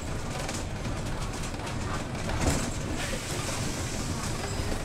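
City bus cabin noise while moving: a steady low rumble from the engine and road, with rattling from the bodywork and one sharper knock about two and a half seconds in.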